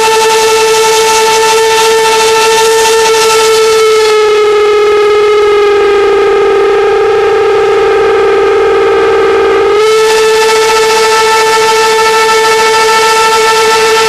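Train whistle held in one long, steady blast. About four seconds in, its pitch dips slightly for several seconds, then snaps back up.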